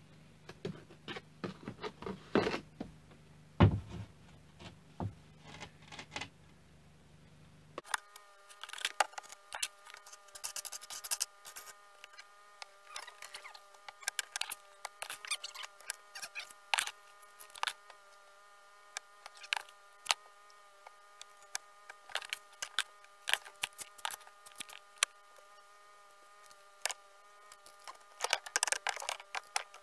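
Bricklaying with a steel trowel: irregular short scrapes, taps and clicks of the trowel and bricks on mortar, the loudest in the first few seconds. About eight seconds in, a steady buzzing hum starts and continues under the taps.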